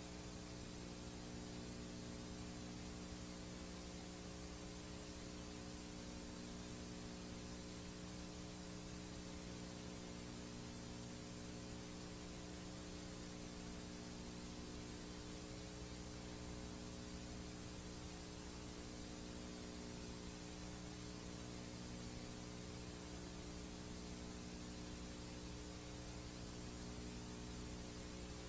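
Steady hiss from a blank stretch of VHS tape playing back, with a steady low hum and its overtones underneath.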